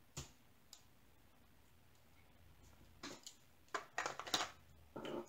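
Small plastic drill containers and zip bags being handled: a light click near the start, then a run of short clicks and rustles about three to four and a half seconds in.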